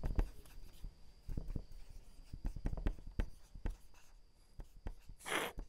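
Dry-erase marker writing on a whiteboard: a run of short taps and scratchy strokes of the felt tip. A short, louder rasp comes about five seconds in.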